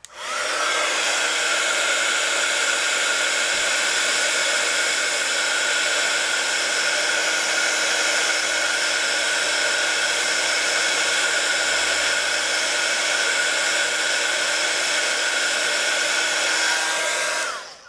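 Handheld craft heat tool (embossing heat gun) blowing hot air steadily to dry wet acrylic paint. It is a steady fan rush with a hum, switched on at the start, its pitch rising slightly as it spins up and falling as it winds down just before it stops near the end.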